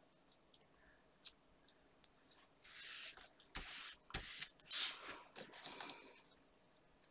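Hands pressing and rubbing a layered piece of card stock flat on a cutting mat: a few seconds of dry paper brushing and sliding, starting about two and a half seconds in, with a couple of light taps.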